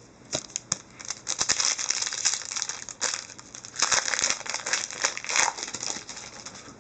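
Foil wrapper of a hockey card pack crinkling in the hands as it is torn open and the cards pulled out, in irregular rustling spurts.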